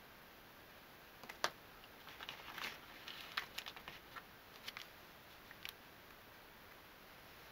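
Faint handling noise: a sharp click about a second and a half in, then a few seconds of light taps, clicks and crinkling of a plastic bag as an item is lifted out of a cardboard box.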